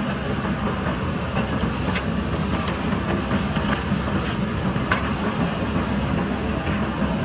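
JCB backhoe loader's diesel engine running steadily under working load, with a few sharp clanks from the digging, about two and five seconds in.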